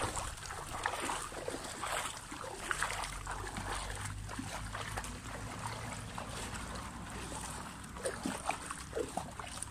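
Pool water sloshing and splashing as arms sweep open and closed through it, a steady wash of splashes with occasional sharper ones.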